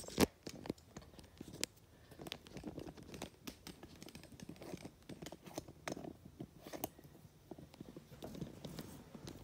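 Handling noise from a camera being adjusted and turned to pan: scattered clicks and rubbing, with one sharper click just after the start.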